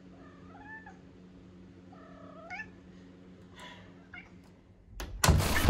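A black cat meowing twice, two quiet bending calls about two seconds apart, over a faint steady hum. A sudden loud burst comes near the end.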